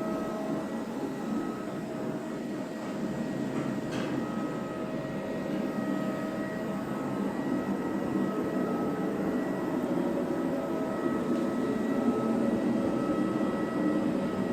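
iClebo Omega robot vacuum running as it cleans: a steady motor hum with a constant whine, getting a little louder in the second half.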